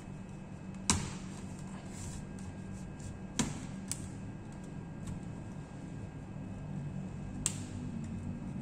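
Four sharp clicks and taps of small tools on a laptop's plastic case during disassembly, the first the loudest, over a steady low hum.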